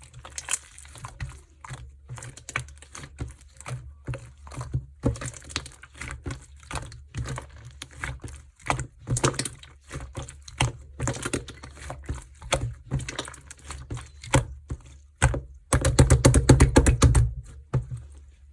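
Black slime with gold glitter being squished and pressed by hand, giving rapid irregular sticky clicks and small pops. A louder, denser run of crackling comes near the end.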